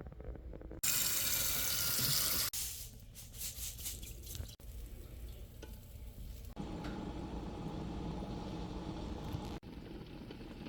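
Hot oil sizzling as deviled eggs fry, in short clips cut one after another. The loudest stretch is a strong hiss about a second in, lasting a second and a half.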